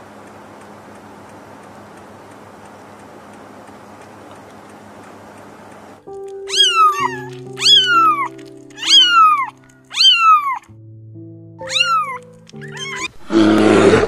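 Young kittens mewing: about six high calls, each falling in pitch, over soft background music with held notes, after a few seconds of faint steady background. Near the end a loud, rough roar starts.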